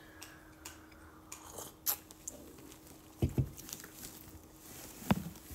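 Quiet sips and swallows of coffee from a glass mug, then two soft low knocks as the mug is set down on the table, with a sharp click near the end, over a faint steady hum.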